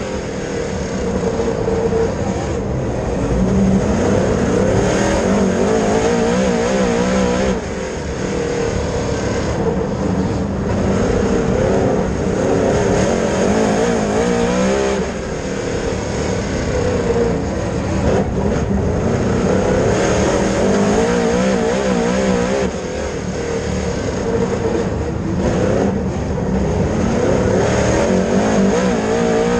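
Dirt late model race car's V8 engine at racing speed, its pitch wavering with the throttle and easing off briefly about every seven or eight seconds.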